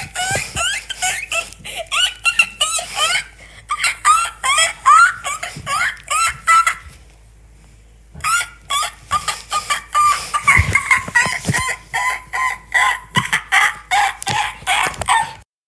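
Duckling peeping: rapid runs of short, rising chirps, several a second, with a pause of about a second and a half near the middle. The sound cuts off abruptly just before the end.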